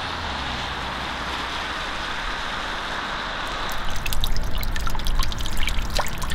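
Steady hiss of rain over a wet road, then water pouring from a roof downspout and splattering onto gravel, with many small splashes from about four seconds in.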